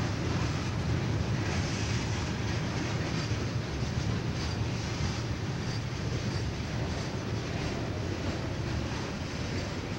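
Freight train of boxcars rolling steadily past: a continuous low rumble of wheels on rail, with faint clicks here and there.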